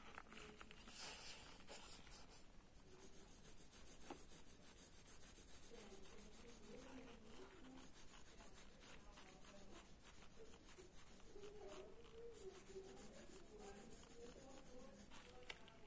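Faint scratching of a pencil's graphite tip on paper, in short drawing strokes.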